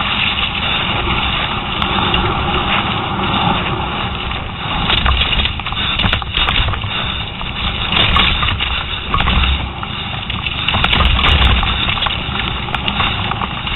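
Downhill mountain bike descending a rocky dirt trail at speed: a steady rumble of wind rush on the microphone and tyres on dirt, with frequent rattles and knocks from the bike jolting over rocks.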